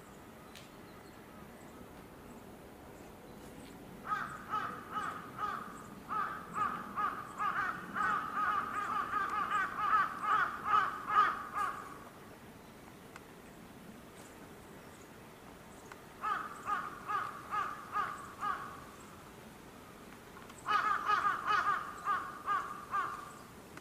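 A crow cawing outdoors in quick runs of harsh calls, about three a second, in three bouts: a long one of about eight seconds, then two shorter ones.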